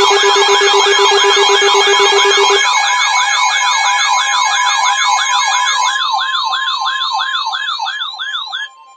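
Electronic siren-style alert tone preceding an Emergency Alert System warning: fast rising sweeps, about four a second, over steady tones. A low steady tone drops out about two and a half seconds in, and the sound fades and cuts off near the end.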